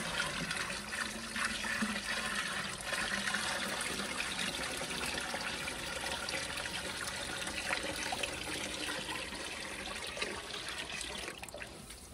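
Water poured from a plastic five-gallon bucket into a galvanized steel can, a steady splashing pour that tails off and stops near the end as the bucket empties.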